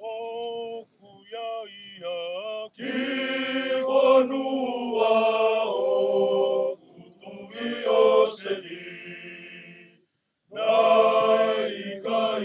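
Voices chanting without instruments in held, sung phrases, thin at first and fuller from about three seconds in, with a short break about ten seconds in.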